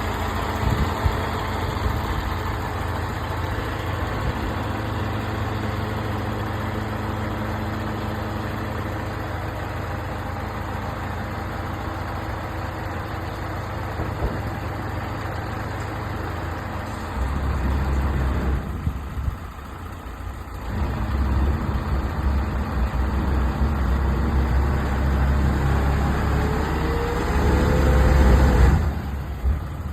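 Isuzu truck's diesel engine running at idle. After about seventeen seconds the low rumble grows heavier, with a brief dip, and near the end the pitch rises and it gets louder before dropping away.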